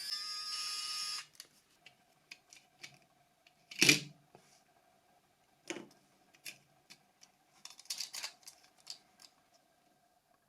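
Background music stops about a second in, then scattered sharp plastic clicks and taps from Nokia 5210 phones being taken apart by hand, the loudest about four seconds in, over a faint steady hum.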